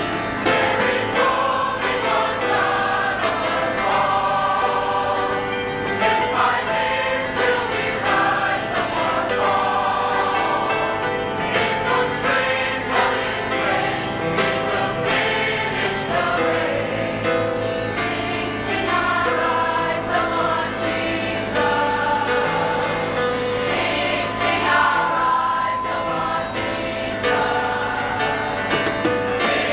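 Large mixed choir of men and women singing a gospel song in harmony, holding chords that change every second or so.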